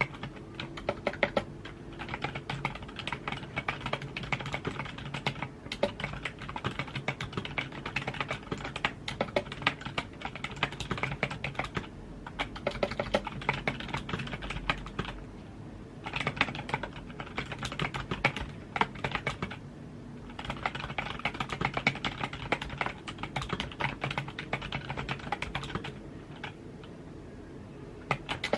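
Computer keyboard being typed on in quick runs of key clicks, broken by brief pauses every few seconds.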